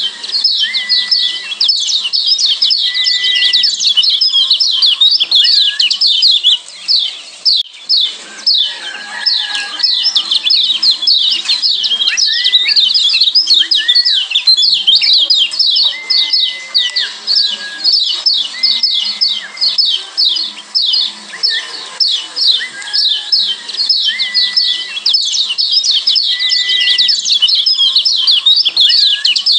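Kecial kuning (Lombok yellow white-eye) giving rapid, continuous 'ciak' chattering calls, dense and high-pitched. Short flat whistled notes recur every second or two underneath. The chatter drops out briefly a few seconds in.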